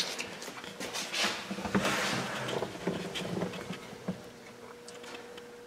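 Handling noise from a handheld camera being moved around inside a car: a click, then irregular rustling and small knocks for a few seconds. A faint steady buzzing hum comes through more plainly near the end.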